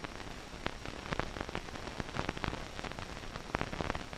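Hiss and scattered irregular crackles and pops of an old optical film soundtrack, with no clear engine or rotor sound.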